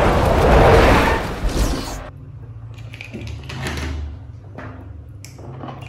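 Film sound of a race car spinning out on grass: dense loud noise that cuts off abruptly about two seconds in. Then faint clicks and clatter of plastic toy cars handled in a plastic basket, over a low hum.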